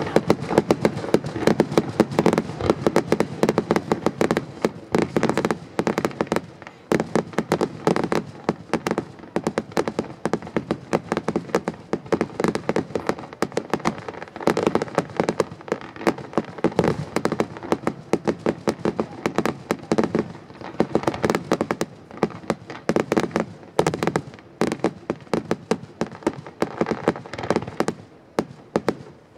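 Professional firework display: dense, rapid runs of sharp bangs and crackles from bursting shells and effects, coming in waves that ease off briefly a few times.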